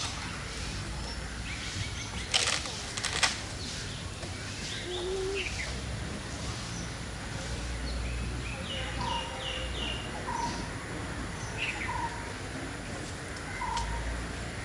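Birds chirping and calling at intervals over a low steady rumble, with two sharp slaps about two and a half and three seconds in.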